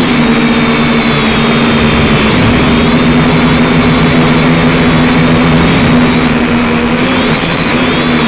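Syma X5C quadcopter's small motors and propellers running steadily, a loud close hum and whine from the onboard camera's microphone. The pitch wavers slightly near the end as the throttle shifts.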